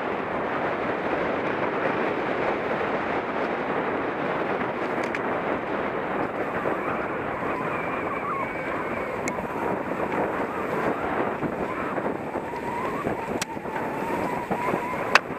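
Wind rushing over the camera microphone of a mountain bike descending a dirt singletrack through brush, steady and loud. A thin, wavering whine comes in during the last few seconds, and there is a sharp knock near the end.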